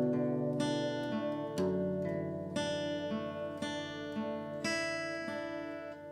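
Background music: an acoustic guitar strumming chords, a fresh strum about once a second.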